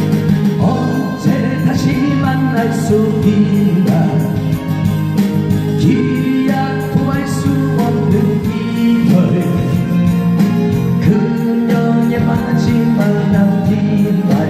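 A man singing a slow Korean ballad into a microphone over instrumental accompaniment, amplified through a PA.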